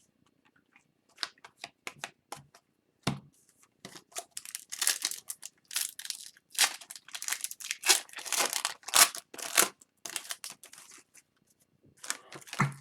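Hockey card pack wrapper torn open and cards handled: a run of short tearing and rustling sounds, scattered at first and densest in the middle.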